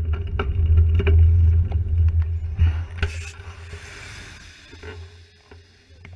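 Vehicles driving on a wet road: a heavy, steady low rumble for about the first three seconds. About three seconds in comes a hiss of tyres through standing water as a box truck passes close alongside, and the sound then drops away.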